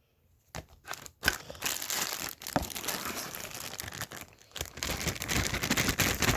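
Packaging crinkling and rustling as it is handled: a few sharp clicks in the first second or so, then dense crinkling for most of the rest.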